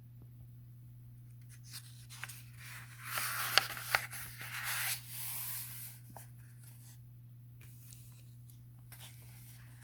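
Paper rustling and rubbing for a few seconds, with a couple of sharp clicks, as a page of a paperback book is turned, over a steady low electrical hum.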